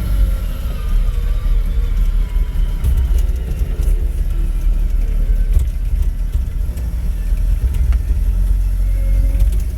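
Matbro telehandler's diesel engine running under way, heard from inside the cab as a heavy, steady low rumble, with scattered knocks and rattles from the machine moving over rough ground.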